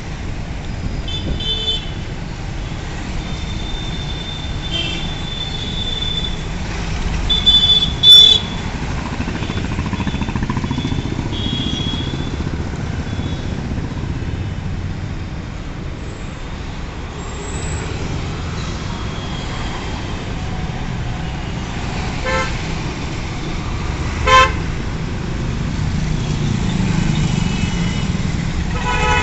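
Busy city street traffic: engines of cars, motorcycles and auto-rickshaws running past in a steady rumble, with frequent short horn toots. The loudest horn blast comes about a quarter of the way in, and two short beeps come later.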